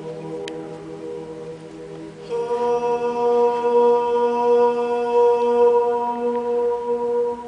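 A man singing long, held notes into the Pisa Baptistery's very long reverberation, the echoes of his notes overlapping into a sustained chord. A new, louder note comes in about two seconds in and rings on under the earlier ones.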